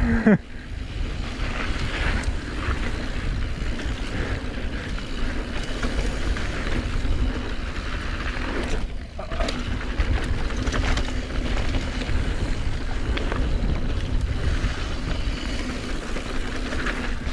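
Mountain bike riding down a dirt flow trail: steady wind rush on a GoPro, with tyres rumbling over the ground and scattered knocks and rattles from the bike. The noise drops briefly about halfway through.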